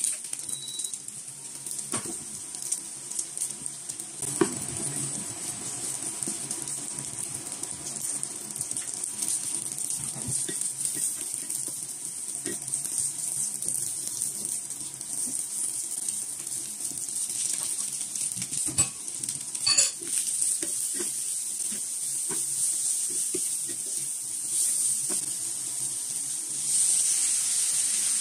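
Pork slices sizzling in a nonstick frying pan, with a wooden spatula scraping and now and then knocking against the pan as the food is stirred. The sizzle grows louder near the end.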